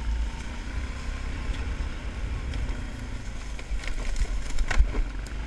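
ATV engine running as the quad rides along a trail, with a low rumble throughout. A few sharp knocks and rattles come about four to five seconds in, the loudest near the end.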